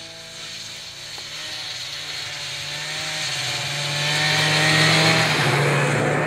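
Snowmobile engine at high revs as the sled ploughs through deep snow toward the listener, growing louder and rising slightly in pitch to a peak about five seconds in, then cut off abruptly.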